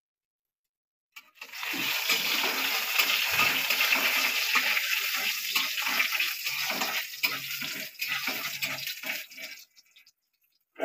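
Panch phoron and dried red chilli sizzling in hot oil in a kadai while being stirred with a spatula. The sizzle starts about a second and a half in, runs steadily with light scraping under it, and dies away near the end.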